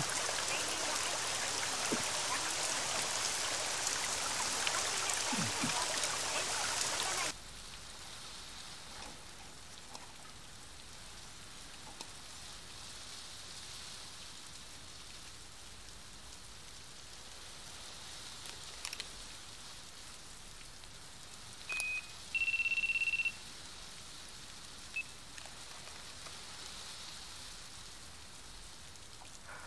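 Heavy rain hissing, cutting off suddenly about seven seconds in and giving way to a much fainter steady rain hiss. About two-thirds of the way through, a short high electronic beep sounds, followed by a longer one lasting about a second.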